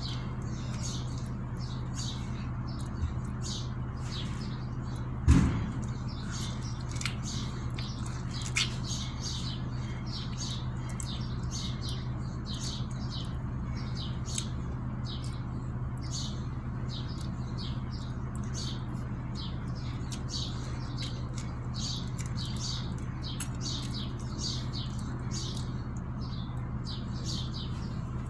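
Small birds chirping in quick, repeated short calls over a steady low hum, with a single thump about five seconds in.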